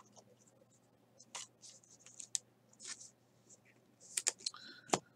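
Faint handling of glossy trading cards: scattered short rustles and clicks as cards slide against one another, with a sharper tap near the end.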